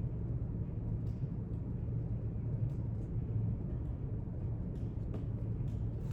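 Steady low hum of a quiet library room, with a few faint light clicks and taps.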